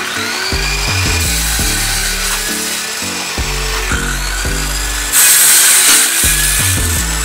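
Handheld circular saw running in a sliding rail jig, its motor whining up as it starts, then cutting through a strip of film-faced plywood, loudest for about a second some five seconds in.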